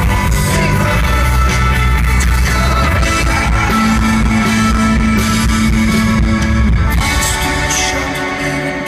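Live rock band playing: drums, bass and guitars with a male lead singer. The low bass and kick drum thin out about seven seconds in.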